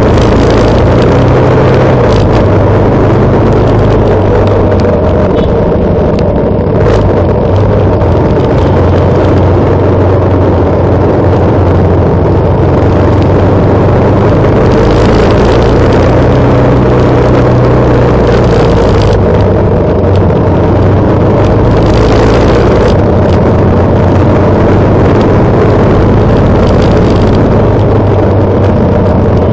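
Motorcycle engines running steadily at riding speed, loud and continuous, with wind rushing over the microphone.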